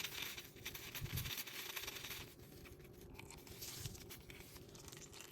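Faint scraping and light clicks of a hand tool working a drain bolt loose on a motorcycle engine.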